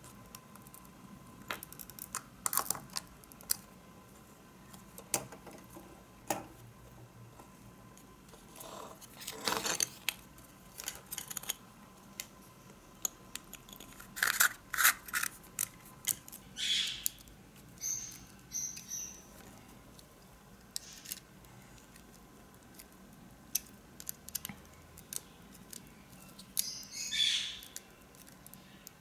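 Quiet, scattered clicks, taps and short scrapes of hand work on plastic bulb sockets: a small voltage-tester screwdriver turning the terminal screws to clamp wires, and the socket shell parts knocking and snapping together, with a brief high squeak or two past the middle.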